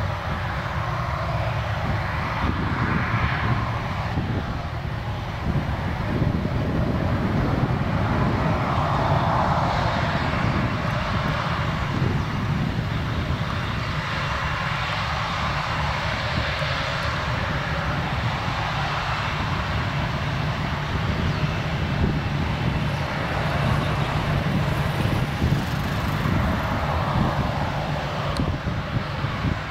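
Boeing 737-700's CFM56-7B turbofan engines running steadily, a constant jet noise with a faint high whine.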